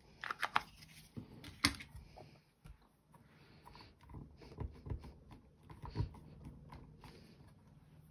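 Plastic ink pad cases clicking and tapping as they are handled and set down, then soft handling of cardstock and a few dull knocks against a stamp positioner.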